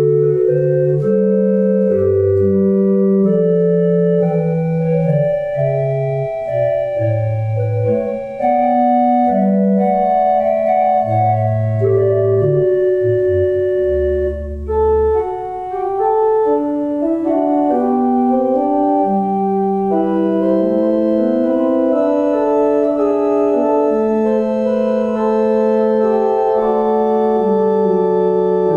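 Organ music: sustained chords that change every second or so over a moving bass line, with a deep low bass note about halfway through.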